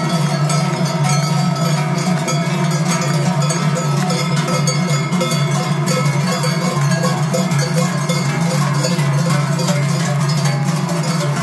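Many large Swiss sheet-metal cowbells (Trycheln), carried in pairs on wooden shoulder yokes, swung by a marching group. They make a loud, continuous, rhythmic clanging din.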